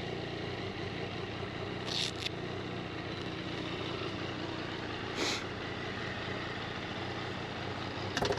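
Yamaha MT-09's three-cylinder engine idling steadily. There are brief hissing bursts about two seconds and about five seconds in, and a short clatter near the end.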